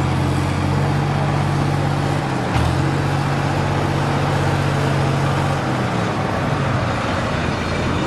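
Heavy vehicle engines running hard under load while pulling against each other. There is a short knock about two and a half seconds in, and the engine note changes a little past the two-thirds mark.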